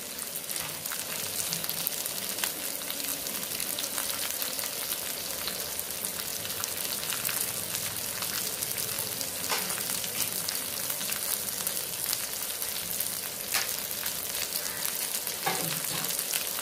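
Sliced onion, carrot and green peas sizzling steadily in hot oil in a non-stick kadai, with a few sharp crackles.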